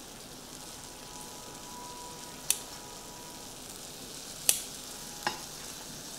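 Beef slices sizzling steadily in a ridged grill pan, a constant high hiss. Three sharp clicks, about two and a half, four and a half and five seconds in, from the kitchen scissors cutting the meat and the tongs handling it.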